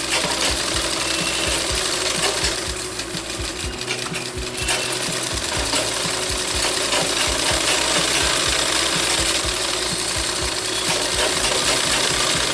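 Sewing machine stitching a seam through fabric, running continuously with a fast, even mechanical clatter, without stopping.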